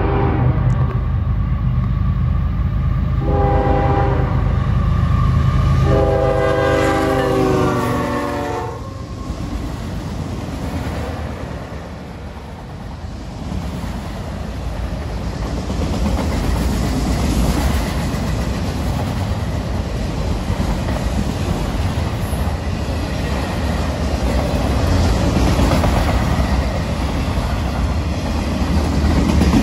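Freight train's diesel locomotive horn blowing for a grade crossing: a blast ending about a second in, a shorter one around three seconds in, and a long one ending near nine seconds, over the engines' low rumble. Then the autorack cars roll past with steady wheel noise and clickety-clack on the rail joints.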